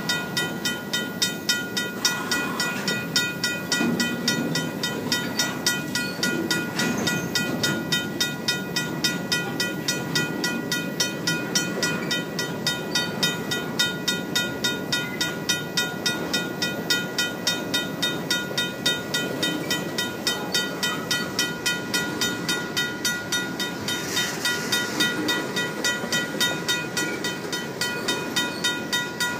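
Grade-crossing signal's RACO mechanical bell ringing steadily, a few rapid strokes a second, over the rolling rumble and wheel clatter of empty covered grain hopper cars passing close by.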